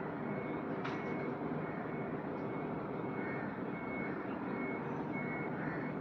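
Steady outdoor background noise, an even rushing hiss with no clear source, with a brief click about a second in.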